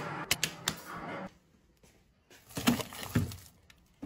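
Handling noise from a plate and plastic wrapper: a few sharp clicks and taps, about a second of quiet, then more knocking and rustling as the plate goes into a freezer.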